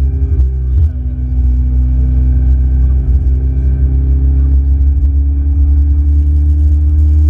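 Ferrari 488 GTB's twin-turbo V8 running as the car drives: a steady low drone whose pitch creeps slowly upward, with a brief dip in level about a second in.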